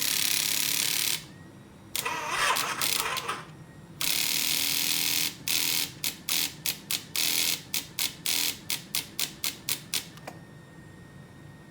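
2008 Harley-Davidson V-Rod's starter system making harsh cracking sounds instead of cranking the engine when the start button is pressed: three long bursts of about a second each, then a quick run of short cracks at about three a second that stops near the end. The engine never turns over or fires.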